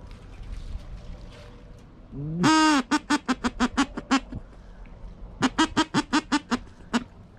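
Loud duck quacking: a long drawn-out call about two seconds in, then two quick runs of about eight quacks each.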